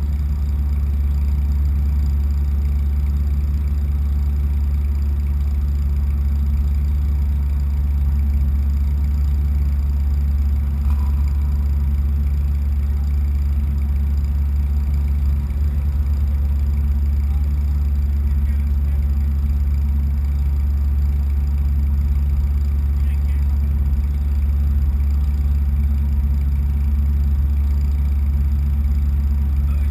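Race car's engine idling steadily, heard from inside the car, with an even low hum and no revs.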